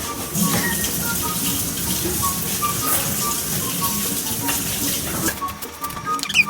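Kitchen tap running in a steady hiss, which stops about five seconds in.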